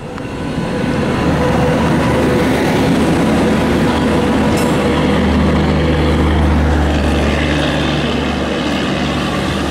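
Indian Railways WAP-7 electric locomotive and the double-decker AC express coaches behind it passing close at speed: a loud, steady rumble and rush that fades in over the first second. It carries a low hum, strongest in the middle of the passage.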